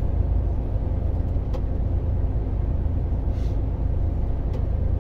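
Volvo truck's diesel engine and road noise heard from inside the cab at motorway speed: a steady low rumble.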